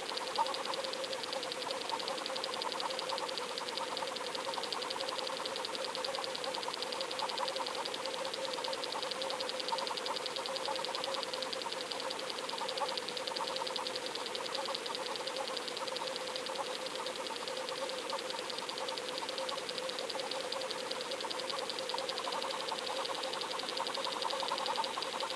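Steady mechanical hum with a fast, even ticking, heard underwater through a submerged camera towed behind a moving kayak.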